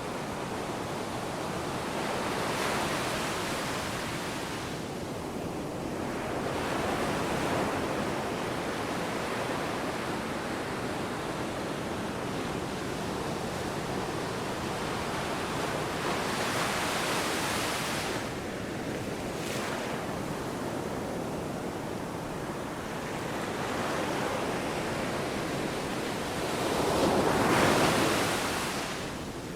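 Ocean waves washing in, a steady rush of surf that swells every several seconds, loudest near the end.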